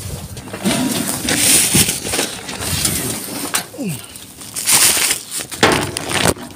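Clear plastic bags crinkling and rustling as they are grabbed and pulled about by a gloved hand, in two loud bouts, about a second in and near the end.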